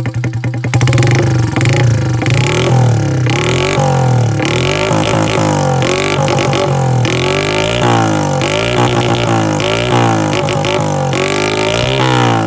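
Honda Monkey's single-cylinder four-stroke engine, run straight-piped through a Pretty Racing exhaust with the silencer removed, revved in quick repeated throttle blips, its pitch rising and falling over and over.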